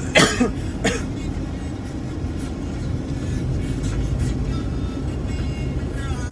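Steady rumble of a car's cabin on the move, with a man coughing twice near the start, about a second apart.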